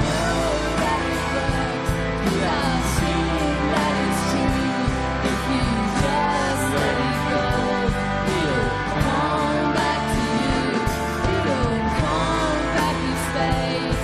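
A rock band playing live: electric guitars, keyboard and drums, with a voice singing.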